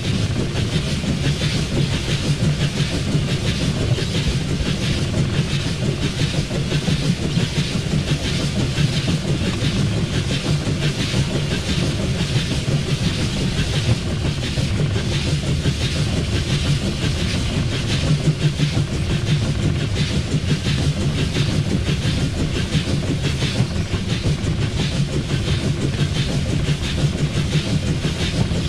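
Swedish SJ E2 steam locomotive No. 1040 of 1910 running along the line, heard from inside its cab: a steady low rumble with a rapid, even clatter.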